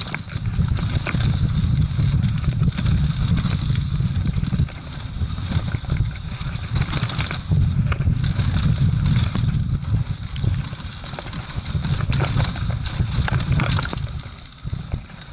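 Wind buffeting the microphone in a heavy low rumble, over the rattle and clatter of a mountain bike, its chain and frame, as it descends a rough dirt trail. The rumble eases briefly twice, a little under five seconds in and near the end.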